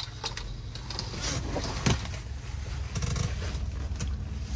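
Rain tapping irregularly on a semi-truck's windshield and cab, with a few louder drops, over the steady low hum of the parked truck.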